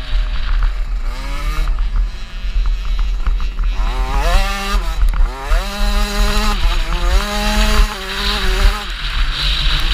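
KTM 65 two-stroke motocross bike engine revving hard, its pitch climbing in several runs and dropping back at each gear change. Heavy wind rumble on the bike-mounted camera's microphone.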